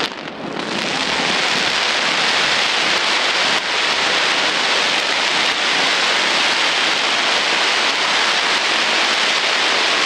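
Fireworks giving off a dense, steady crackling hiss that builds up over the first second and then holds without single bangs standing out.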